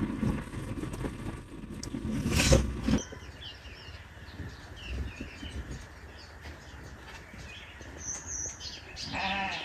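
Rumbling wind noise on the microphone for about three seconds, then a sudden switch to quiet outdoor ambience with small birds chirping now and then. A brief pitched call comes just before the end.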